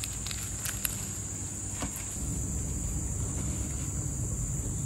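Steady high-pitched chirring of tropical insects from the surrounding vegetation. A few faint light clicks come in the first second, and a low rumble grows louder about two seconds in.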